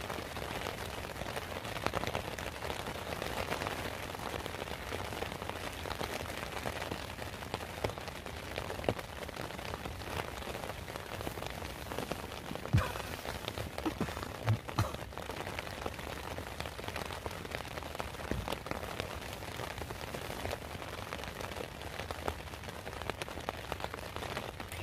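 Steady rain pattering on a surface, with a few sharper knocks about halfway through.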